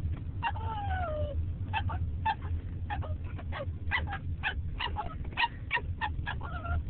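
Bichon frisé puppy giving one falling whine-howl, then a rapid run of short, sharp yips, several a second. Underneath is the steady low rumble of the car he is riding in.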